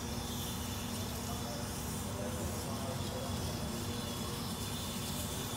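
Micromouse robot on its high-speed run through the maze: a faint high whine from its motors that dips and rises in pitch as it brakes and accelerates. The steady hum and murmur of a large hall runs underneath.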